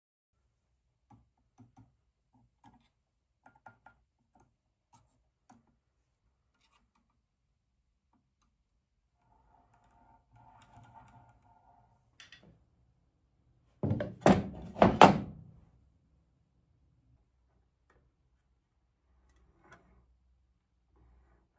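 Small metal model steam engines being handled by hand: scattered light clicks and taps, then a cluster of about four loud knocks about fourteen seconds in.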